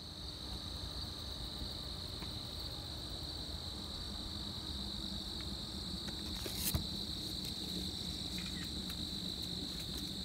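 Crickets chirping in a steady, high continuous trill, with a single sharp click about seven seconds in.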